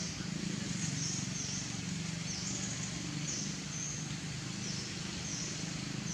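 Outdoor ambience: short, high, falling chirps repeating every half second to a second, over a steady low hum and hiss.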